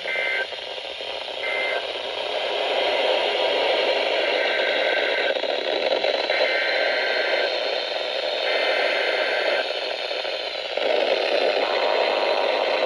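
Static-laden weather radio receiver sending EAS/SAME digital data bursts, the harsh two-tone screeches that mark the end of one alert and the header of the next. There are two short bursts at the start, then about one-second bursts from around five seconds in. Near the end the steady alert tone of the National Weather Service warning alarm begins.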